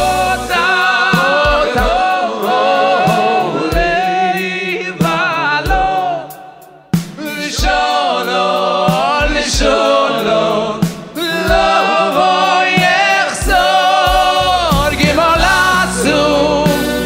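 Voices singing a Shabbos table song (zemer) together over a live band with a regular kick drum. The music thins out and drops away about six seconds in, then comes back in full a second later.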